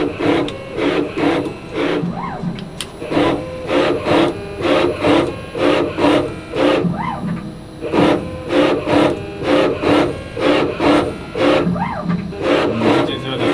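CNC lathe's home-built slotting attachment stroking its cutting tool back and forth along a steel drive shaft to cut spline teeth: a rhythmic scraping cut at about two strokes a second.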